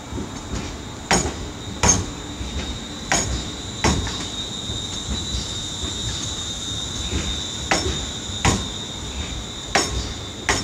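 A ScotRail electric multiple unit moving slowly along the platform. Its wheels click over rail joints in pairs, four pairs in all, over a low rumble and a steady high-pitched tone.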